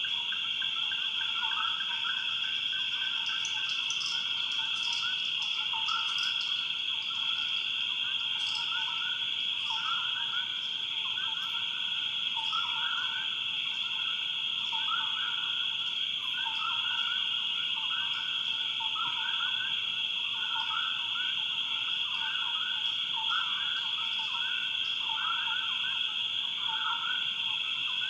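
Swamp ambience: a continuous high insect drone under a chorus of frogs calling over and over in short repeated notes, with faint scattered ticks and chirps above.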